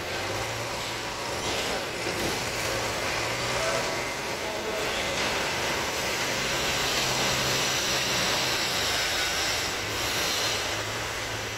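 Steady mechanical rumble with a low hum and a hiss, swelling slightly around the middle.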